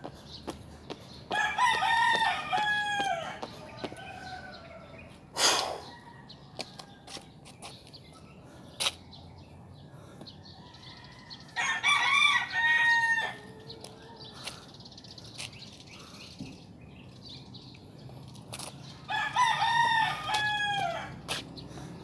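A rooster crowing three times, each crow about two seconds long and some eight seconds apart. A single sharp knock comes about five seconds in.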